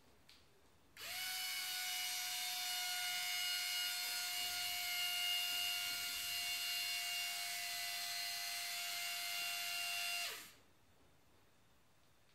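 Small electric hoist motor of a handmade model tower crane running with a steady whine. It starts suddenly about a second in, runs for about nine seconds, then slows and drops in pitch as it stops.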